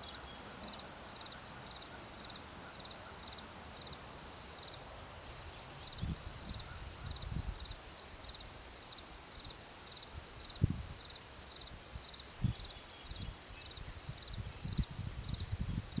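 Insects chirping in a steady, high, pulsing chorus, with scattered low thumps from about six seconds in.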